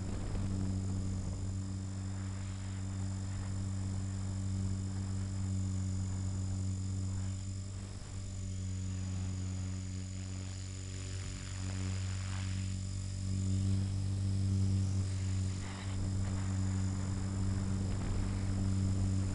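450-size RC helicopter in flight, heard from its onboard camera: a steady low drone from the rotor and drivetrain with a thin high motor whine over it, swelling a little in the second half.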